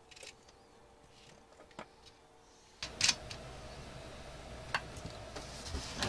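Workbench handling noises: a few faint clicks, then from about three seconds in a steady low hiss with several sharp clicks and taps as wires and a cordless drill's plastic battery pack are handled.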